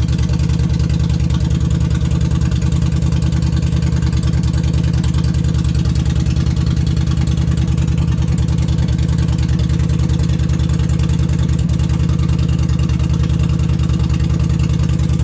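2011 Yamaha Stryker's V-twin idling steadily and loud on open exhaust, with its mufflers removed, in an even rapid pulse.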